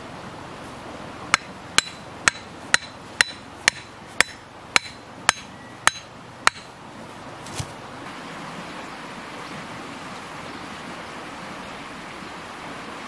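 A sharpened wooden stake being hammered into the ground with the back of a metal blade: eleven sharp, ringing blows at about two a second, then one softer knock. A steady rushing noise continues afterwards.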